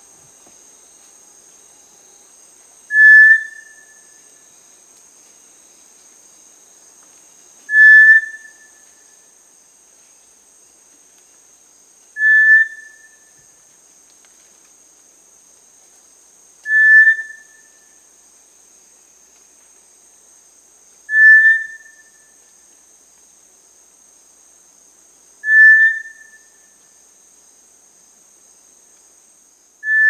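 A clear whistled call, one short note with a quickly fading tail, repeated about every four and a half seconds, over a steady high-pitched insect chorus.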